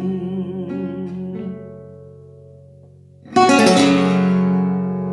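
The closing of a song: held notes with vibrato fade away, then about three seconds in a final chord is struck on an acoustic guitar and left ringing.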